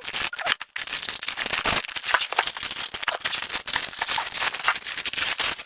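Packaging being handled during an unboxing: dense crinkling and crackling rustle with many small clicks, stopping abruptly near the end.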